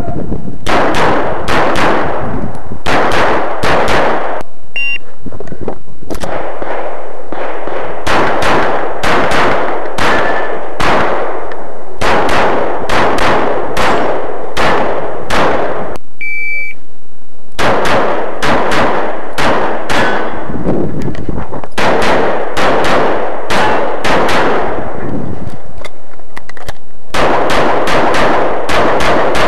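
Semi-automatic pistol fired in rapid strings of loud shots, each shot trailing off in an echo, with short pauses between strings. A short beep sounds a little past halfway.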